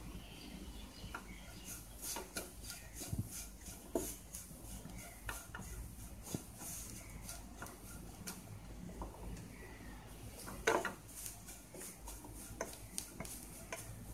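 Flat wooden spatula scraping and tapping against a nonstick kadai, stirring chopped onion, capsicum and wheat flour as the flour roasts on a low flame: irregular short scrapes and knocks, with one louder knock late on.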